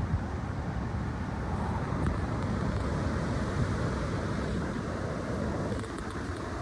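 Strong wind rushing steadily, with gusts buffeting the microphone at the start.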